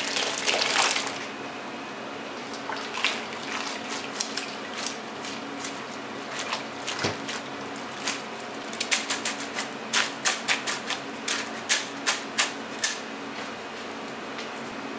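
Thick pork-bone soup splashing through a stainless mesh strainer into a bowl for about the first second, then sharp metal clicks and taps as the bone solids are worked in the strainer, coming in a quick run from about nine to thirteen seconds in.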